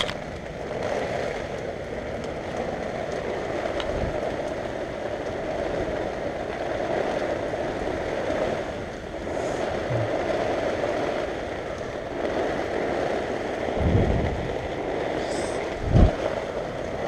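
Heavy rain falling on a tent, a steady rush, with two low thumps near the end.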